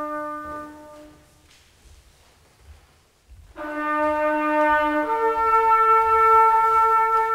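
Trumpet playing long held notes. One note fades away about a second in, and after a pause of about two seconds a new note enters, then steps up to a higher held note.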